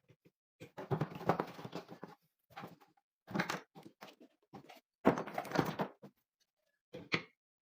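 Irregular clatter and rustling from parts and tools being handled, in bursts of up to a second or so with silent gaps between them. The longest bursts come about a second in and about five seconds in.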